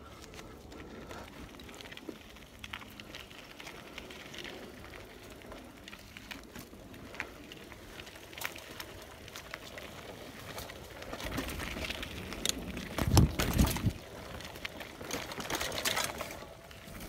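Mountain bike jolting down a bumpy dirt trail: tyres on dirt with irregular clicks and rattles from the bike, growing busier in the second half, with a burst of heavy knocks and rumble about thirteen seconds in.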